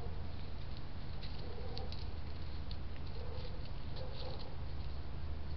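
Steady low electrical hum and hiss from a night-vision trail camera's recording, with faint, soft, scattered ticks and patters.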